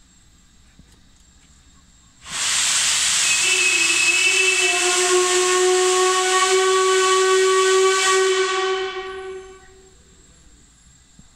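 Steam whistle of LMS Stanier Black 5 steam locomotive No. 5025, sounded once for about seven seconds. A sudden rush of hissing steam comes first, then a steady whistle tone joins it about a second later, and both fade out together.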